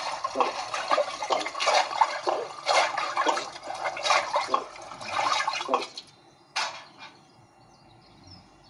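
Rushing, splashing water in repeated surges, stopping about six seconds in, with one last short surge a little later.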